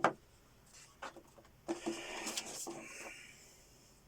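Handling noise: a few light knocks and a stretch of rustling, as of an unboxed item and its packaging being moved about, fading out after about three seconds.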